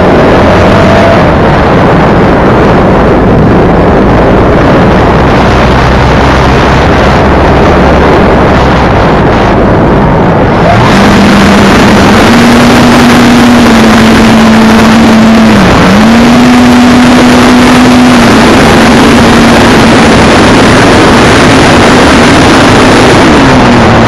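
Loud wind rush on a camera riding a low-flying radio-controlled model plane, over the steady drone of the plane's motor and propeller. About halfway through, the rush turns brighter and the drone settles into a higher hum, which dips briefly a few seconds later.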